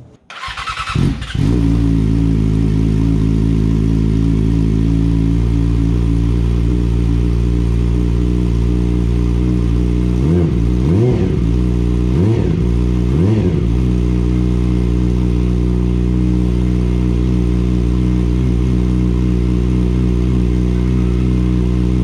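2017 Yamaha R6 inline-four fitted with a full M4 aftermarket exhaust system, starting up about a second in and settling into a steady idle. About ten seconds in, the throttle is blipped a few times in quick succession, each rev rising and falling, before it returns to idle.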